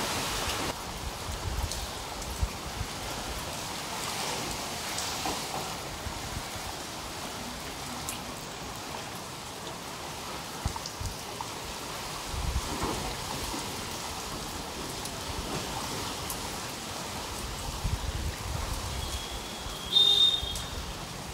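Steady hiss of cyclone rain and wind, with gusts rumbling on the microphone now and then. A brief high tone sounds near the end.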